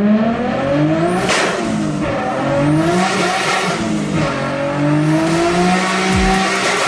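Nissan Skyline R34 GT-R's RB26 twin-turbo straight-six revving hard, its pitch rising and falling several times as it climbs toward about 7,400 rpm, with a brief sharp noise about a second in and again near the end.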